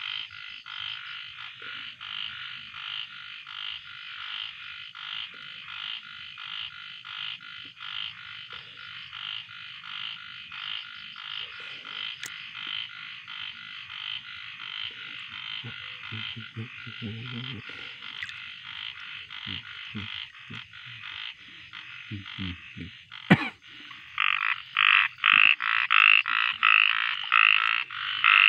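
Frogs calling steadily, a rhythmic pulsing croak repeated a few times a second, louder over the last four seconds. A single sharp click a little after 23 seconds.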